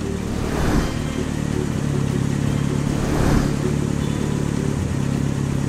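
Engine sound effect for a small cartoon vehicle driving along: a steady low motor hum, with short whooshes about a second in and again about three seconds in.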